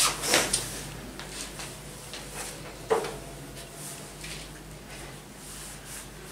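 Quiet classroom room noise: scattered light scratching and rustling sounds, with one sharp knock about three seconds in, over a steady low hum.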